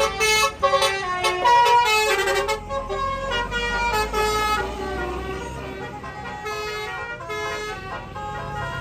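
Multi-tone 'telolet' bus horn playing a quick tune of stepped notes, loudest in the first two and a half seconds and then softer, with a low bus engine rumble swelling in the middle.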